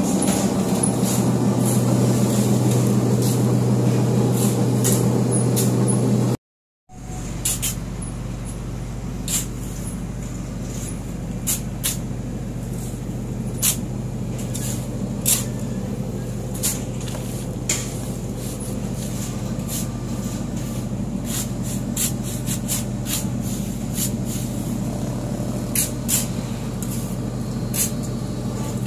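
Steady hum of brick-works machinery, cut off briefly about six seconds in and then coming back quieter. Over it come sharp clinks every second or two, as steel shovels strike the steel wheelbarrows while sand is loaded.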